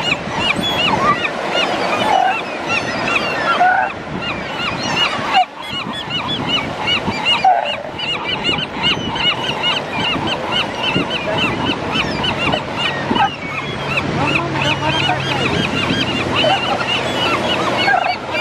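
A crowd of gulls calling constantly, many short, arched cries overlapping one another.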